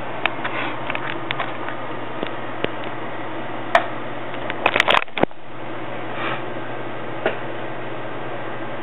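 Steady low hum and hiss, with scattered light clicks and taps and a quick run of several clicks about five seconds in.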